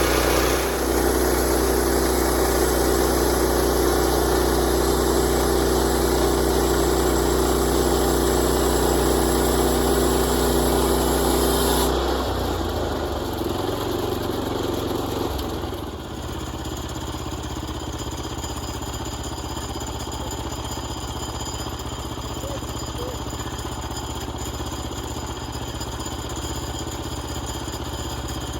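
An engine runs steadily with a bright hiss over it. About twelve seconds in the hiss cuts off, and by about sixteen seconds the engine settles into a quieter, different steady running.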